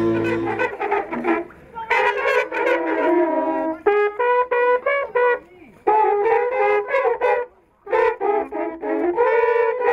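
Several buciums, the long wooden horns of Romanian shepherds, blown together in short overlapping calls on a few pitches, with brief breaks about a second and a half in and near the end.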